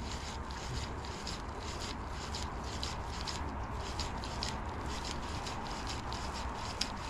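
Fly line being drawn in by hand in a slow twitching retrieve, rasping through the fingers in short scratchy strokes about four times a second, over a low steady rumble.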